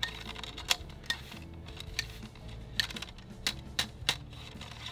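Ramrod clicking and tapping in the bore of a .36 calibre flintlock rifle as a patched round ball is rammed down the barrel. There are about eight sharp, irregular clicks.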